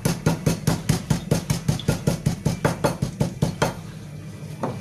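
Black peppercorns being crushed with a rapid run of hard taps, about six or seven knocks a second for about three and a half seconds, then a single knock near the end.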